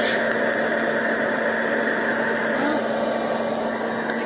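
Hot-air popcorn popper roasting coffee beans, its fan motor running with a steady whirring hum, and a few faint sharp clicks of the beans popping at first crack.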